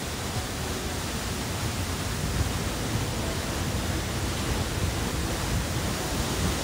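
Lost Creek Falls pouring down, a steady, unbroken rush of falling water heard close up from the rock cavern beside the falls.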